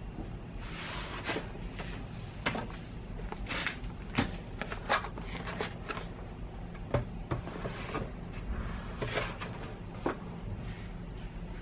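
Hands handling a new printer and its packaging: a string of irregular plastic clicks and knocks, with short bursts of rustling a few times.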